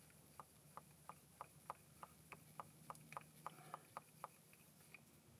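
Small hand air pump being worked with a needle to inflate an air-bag bump stop: faint short clicks, about three a second.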